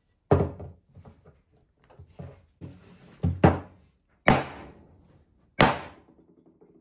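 Chrome steel cymbal-stand tube knocked down against a wooden block, driving the lever lock onto its end: a string of heavy knocks, five of them loud, with lighter taps between and a brief metallic ring after each.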